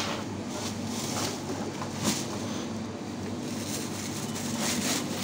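Plastic grocery bags rustling and crinkling as they are handled and packed, in repeated short bursts with a sharp crackle about two seconds in, over a steady low hum.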